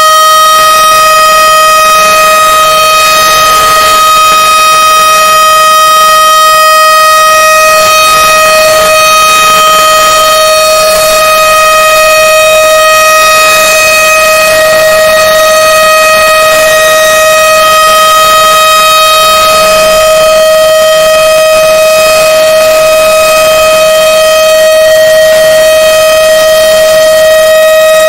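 Emergency alert alarm: one loud, buzzy tone held at a single steady pitch without rising or falling.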